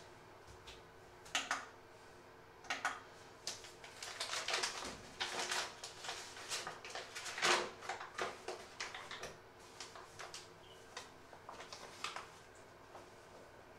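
A paper bag crinkling and rustling as it is handled and opened, in a run of irregular crackles that are densest midway, over a faint steady hum.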